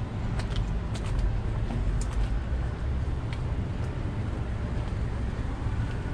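Steady low rumble of street traffic with a few faint ticks scattered through it.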